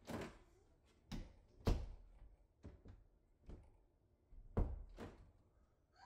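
Newly installed black privacy lever door handle being pressed down and released several times, its latch clicking and knocking. The sound is a series of sharp clicks and knocks, the two loudest about three seconds apart.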